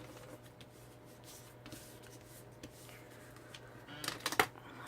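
Light handling of cardstock and tape on a work surface: soft paper rustling with scattered small clicks, and a quick cluster of sharper taps about four seconds in.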